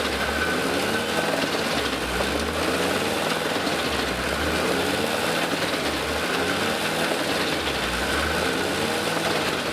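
Gandini Connecticut wood chipper driven by a Claas Xerion tractor, running steadily while chipping, with the engine note rising and falling every couple of seconds as wood is fed in.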